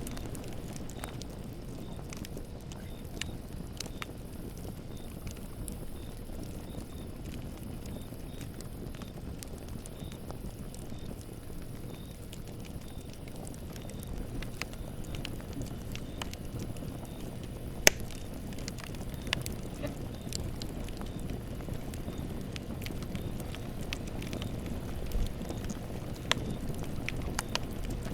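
Campfire burning: a steady low rumble of flames with scattered sharp crackles and pops from the burning wood, one louder pop a little past the middle.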